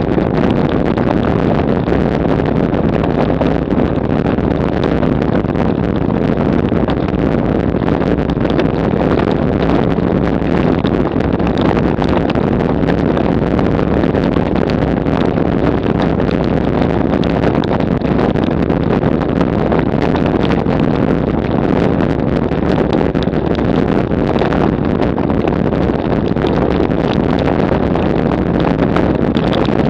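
Road bicycle rattling and drumming over cobblestones at speed: a continuous dense clatter of wheels, frame and camera mount being shaken by the stones.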